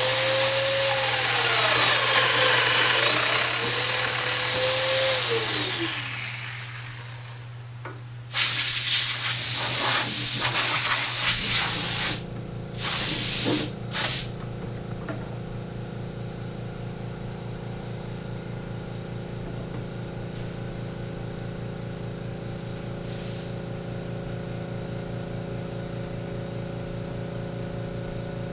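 Woodworking power tool running loud, its motor pitch dipping and rising twice in the first six seconds as it works the wood, followed by a loud hissing noise of several seconds and two short hisses. For the rest of the time a machine hums steadily with a fine, even throb.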